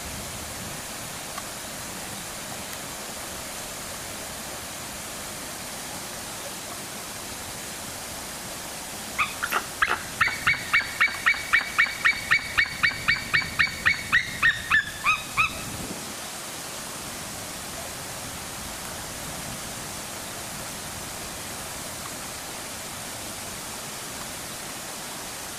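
A bird calling a fast, even run of about twenty short, sharp yelps at a steady pitch, roughly three a second, starting about nine seconds in and lasting some six seconds, over a steady rushing background noise.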